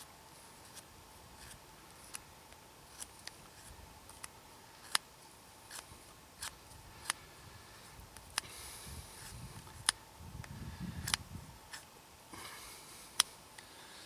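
Knife blade shaving thin curls off a stick of fatwood resting on a wooden stump. A dozen or so sharp, irregularly spaced cutting strokes, the loudest near the end.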